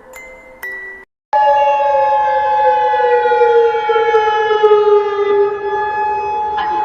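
A few short chime notes, a brief silence about a second in, then an emergency alert alarm tone starts abruptly: a loud steady high tone with a second, lower tone sliding slowly down in pitch beneath it.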